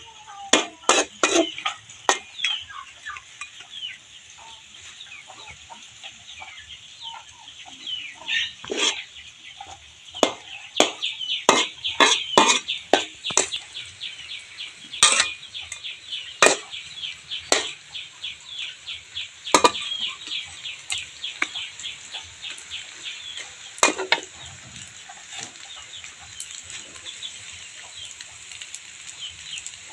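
Metal spatula scraping and clanking against a stainless steel wok as rice vermicelli and shrimp are stir-fried. The sharp knocks come irregularly, in clusters, over a steady hiss.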